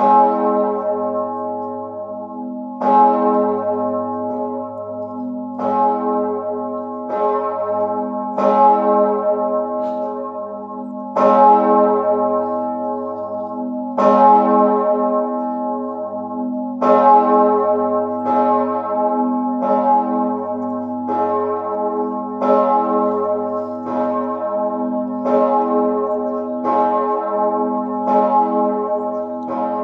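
A single large swinging church bell, the 4,820 kg Mauritius bell cast by Perner of Passau in 2003 and tuned to A-flat below middle C, rings alone. Its clapper strikes about every 1.4 seconds, and each stroke's deep hum rings on into the next. It is tolling as the Sterbestundenläuten, the toll for the hour of Christ's death.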